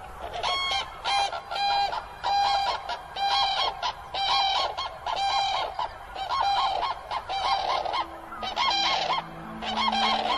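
Common cranes calling: a fast run of loud, trumpeting calls, roughly one to two a second, typical of a pair's courtship unison call.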